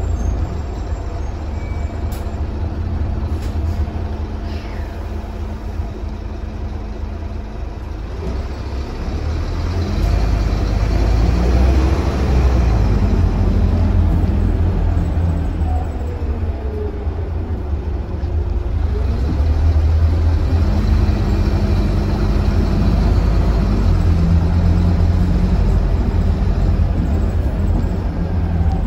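Scania K320UB city bus heard from inside the cabin while under way: a low engine drone that grows louder as the bus accelerates about ten seconds in. In the middle, engine tones glide up and then down, and the drone runs steadily near the end.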